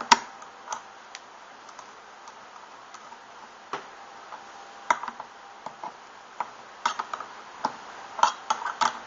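Small wrench and quadcopter parts clicking and tapping as a propeller nut is tightened onto a motor shaft: scattered sharp clicks at irregular intervals, more of them near the end.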